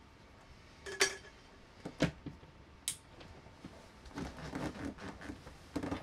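Three sharp clinks about a second apart, the first with a short ring, then a quick run of hard objects clattering and knocking together near the end.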